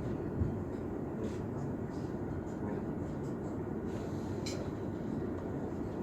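Steady rumble of an S-Bahn train running between stations, heard from inside the carriage, with a few faint clicks from the wheels or carriage fittings.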